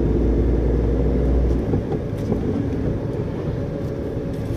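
Steady low rumble of a manual car being driven, engine and road noise heard inside the cabin near the pedals. The deepest part of the rumble eases a little under two seconds in.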